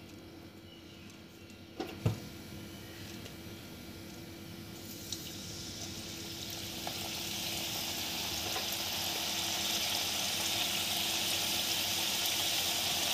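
Maida dough pieces deep-frying in hot oil in a steel kadhai. A couple of light knocks come about two seconds in. Then the frying sizzle builds gradually from around five seconds and settles into a steady hiss.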